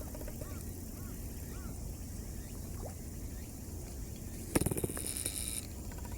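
Steady low outdoor rumble with a few faint chirps early on. About four and a half seconds in comes a rattling, clicking burst that lasts about a second.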